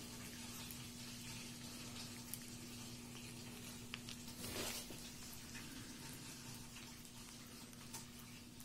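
Young Labrador puppy eating soft mush at weaning, its first solid meals: faint wet smacking and lapping with small scattered clicks, and a brief louder noise about four and a half seconds in. A steady low hum runs underneath.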